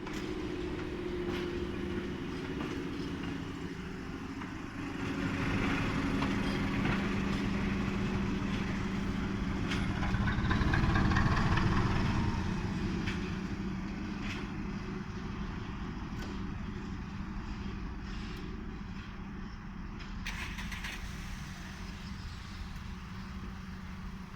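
SM42 diesel shunting locomotive's engine running steadily while it pushes a mixed train. It grows louder to a peak about eleven seconds in, with a rising whine, then slowly fades.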